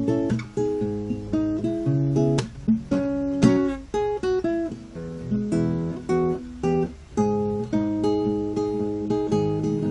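Solo classical guitar, fingerpicked, playing chords with a melody line, one note or chord after another ringing on.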